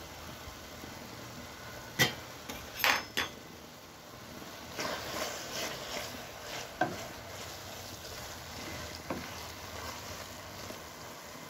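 A spoon clinks sharply against a pot about two seconds in, then twice more a second later. It then scrapes and stirs through mashed carrots, with single knocks on the pot near the middle and later on.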